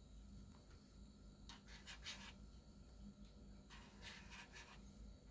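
Faint strokes of a Spectra AD marker tip drawn across paper, in two short runs of quick strokes about a second and a half and four seconds in.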